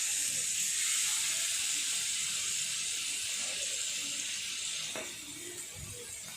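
Marinated chicken pieces sizzling as they are laid on a hot, oiled griller pan. The sizzle starts suddenly and eases off after about five seconds, with a light knock about five seconds in.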